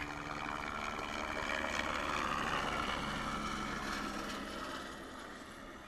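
Helicopter flying low overhead, its rotor and turbine noise swelling as it approaches, loudest about two to three seconds in, then fading as it moves away.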